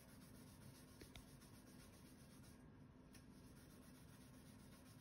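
Near silence: faint steady room tone with a low hum, and a couple of faint ticks about a second in.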